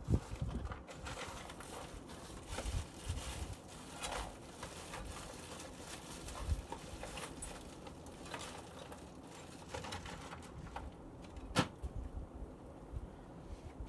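Casablanca Panama ceiling fan running on its fast speed: a quiet fan, heard as an uneven low rush of moving air with a few scattered clicks, the sharpest about two seconds before the end.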